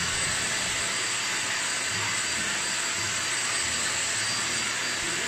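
Deerma DX700 stick vacuum running steadily as its floor head is pushed over a wooden floor: a constant rushing hiss of drawn air with a faint high whine from the motor.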